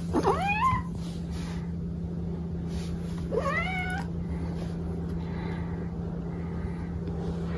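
A cat meowing twice, two rising meows, one at the start and one about three seconds later, over a steady low hum.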